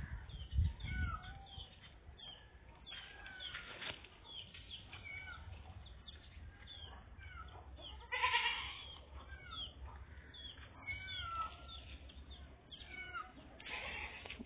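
Repeated short, high gliding animal cries, with one louder, longer call about eight seconds in.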